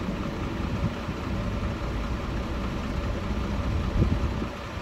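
A vehicle engine idling steadily with a low rumble, and a brief knock about four seconds in.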